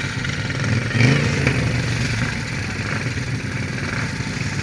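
John Deere outlaw-class racing lawn mower's engine running close up from the driver's seat, with a brief louder surge about a second in.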